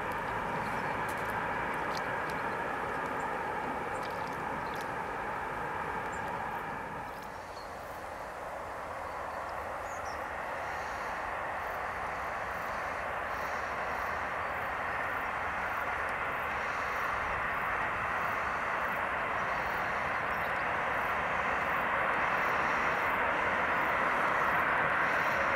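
Distant freight train rolling past, its wagons giving a steady noise with several held tones. About seven seconds in the sound breaks off, and another freight train, headed by an SNCF BB 26000 electric locomotive, approaches with its rolling noise growing steadily louder.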